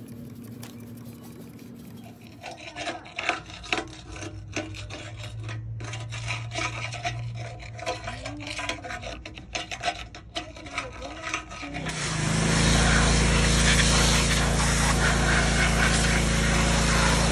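Wire brush scrubbing a metal car subframe in rapid, irregular scraping strokes. About twelve seconds in, a pressure washer starts and runs steadily and loudly, spraying water over the subframe.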